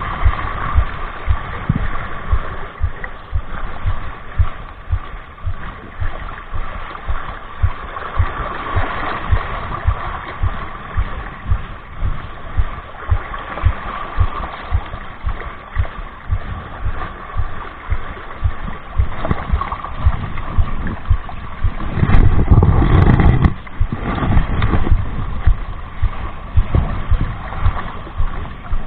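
Wind buffeting the microphone in irregular low thumps, over sea water lapping and washing against shoreline rocks. A louder rush of wind or water comes about 22 seconds in.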